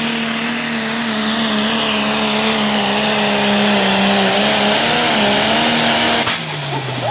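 Pro Stock pulling tractor's turbocharged diesel engine running flat out under full load as it drags the sled, a loud steady note that wavers slightly. About six seconds in, the note breaks off and falls in pitch as the engine comes off the throttle at the end of the pull.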